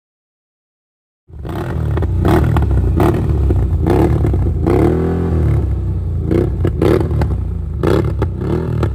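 Third-generation CFMOTO ATV's V-twin engine running through an aftermarket stainless-steel dual exhaust, starting abruptly about a second in and revved repeatedly, the revs rising and falling, over a deep steady rumble.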